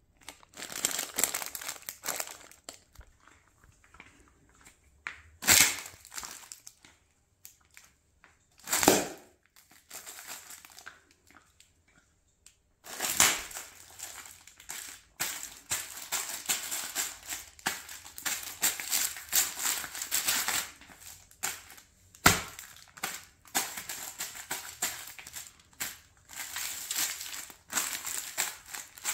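Sealed plastic packets of Arnott's Bluey pizza-flavoured crackers crinkling and crunching as they are trodden on under clear jelly sandals, the crackers inside breaking up. A few single loud pops stand out, two in the first ten seconds and one later. The crinkling and crackling runs almost without a break through the second half.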